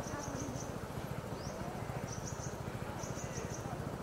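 Roadside forest ambience: short rapid trains of high chirps repeating every second or so, a few quick rising whistles and small lower chirps, over a steady low rumble.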